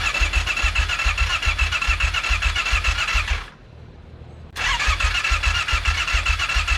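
2008 Kawasaki Brute Force 750's electric starter cranking the freshly rebuilt V-twin engine in two bursts of about three and a half seconds, with a short pause between, chugging at about three compression pulses a second without the engine catching. The owner puts the failure to fire down to fuel not yet reaching the engine after the rebuild.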